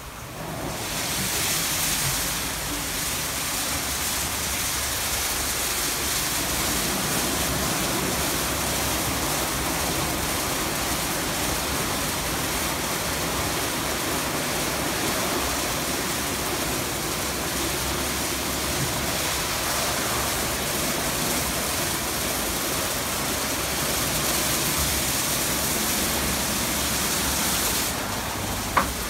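Istobal M12 rollover car wash running: water spraying and rotating Carlite brushes scrubbing a car, a steady rush that comes up about half a second in. A single sharp click near the end.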